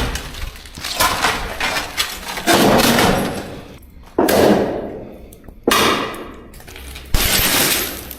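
A series of about six loud, sudden crashing impacts, one every second or so, each with a noisy tail that dies away.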